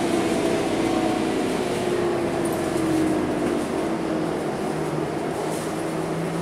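Scania K230UB city bus's rear-mounted five-cylinder diesel and drivetrain droning, heard from inside the passenger cabin with road noise as the bus drives. The engine note falls slowly in pitch through the first few seconds, then settles lower and steadier.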